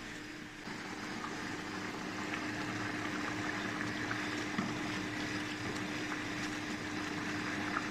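A thick tomato stew simmering in a pot on an electric hot plate while a wooden spoon stirs it: a steady hiss with a low hum running under it and a few soft knocks of the spoon against the pot.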